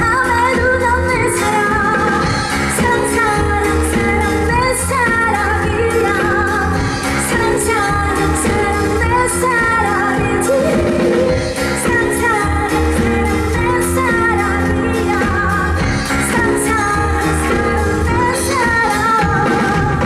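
A woman singing a pop song into a microphone over amplified backing music with a steady beat, her sustained notes wavering with vibrato.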